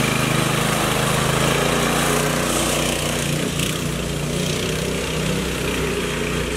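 Honda GX200 single-cylinder four-stroke engine of a home-built off-road go-kart running steadily as the kart drives along.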